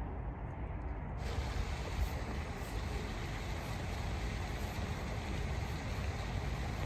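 Steady outdoor background noise: a low, fluctuating rumble under a hiss, which changes abruptly about a second in as a brighter hiss comes in and then holds steady.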